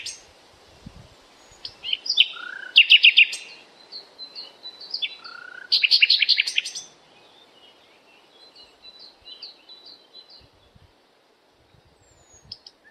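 Songbird singing: loud phrases, each a short rising note followed by a fast high trill, twice a few seconds apart, then softer scattered chirps that die away to quiet near the end.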